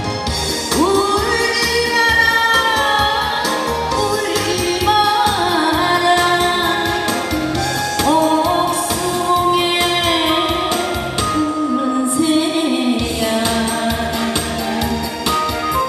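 A woman singing a Korean trot song live into a microphone over instrumental accompaniment, her voice gliding and holding long notes. The bass and drums drop out for about a second near the end before coming back in.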